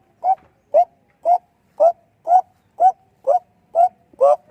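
An unseen animal calling loudly and steadily: short pitched calls, each a brief bent note with overtones, repeating about twice a second, nine in a row. The searcher guesses it is an owl.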